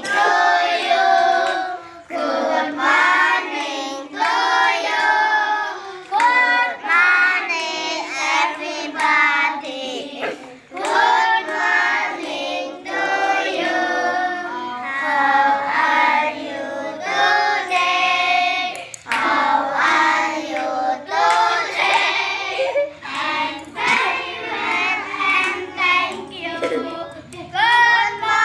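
Children singing a song together in short phrases.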